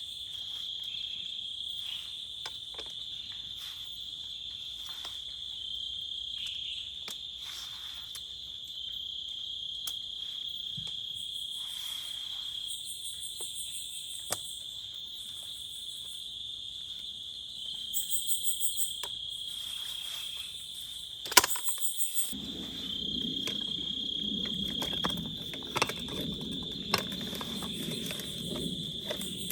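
Crickets chirping in a steady, high, continuous trill, with a few faster pulsed bursts and scattered clicks. About two-thirds of the way in, a lower, rough noise suddenly joins the trill.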